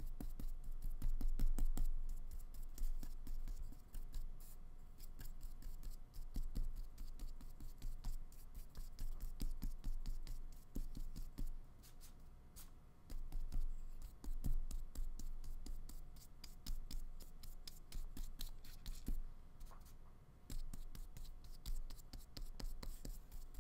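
Flat paintbrush dabbing and scraping acrylic paint onto paper in short strokes: a dry, uneven scratching made of many small taps and scrapes.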